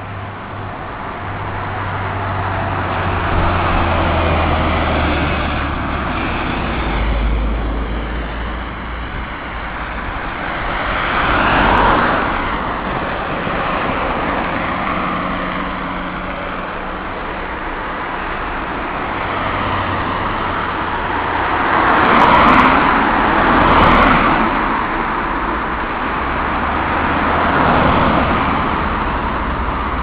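Road traffic: cars passing one after another along a two-lane road over a continuous rumble, each one swelling up and fading away. The biggest passes come about 12 seconds in, twice around 22 to 24 seconds, and near the end.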